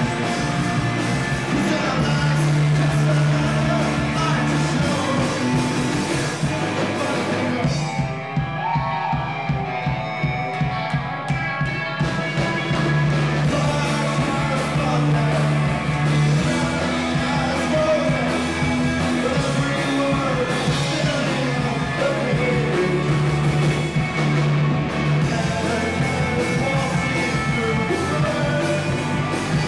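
Live rock band playing: electric guitars, bass guitar and a drum kit, with a male vocalist singing over them. About eight seconds in the cymbals drop out for a few seconds in a short breakdown, then the full band comes back in.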